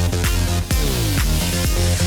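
Electronic dance music with a steady kick-drum beat, heavy bass and falling synth sweeps.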